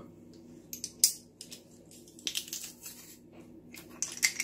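Metal garlic press crushing garlic cloves: three groups of short, sharp squeezing sounds, the loudest about a second in.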